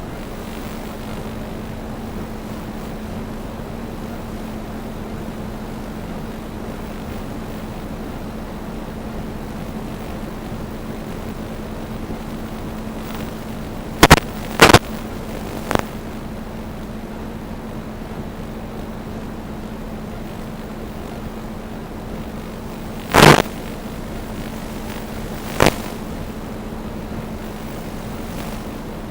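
DJI Phantom 2 quadcopter's motors and propellers humming steadily at one even pitch, with a few sharp loud knocks: two close together about halfway through, and two more later on.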